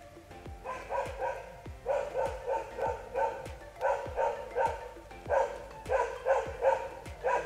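A dog barking repeatedly, in short runs of two to five barks about a second apart, beginning just under a second in.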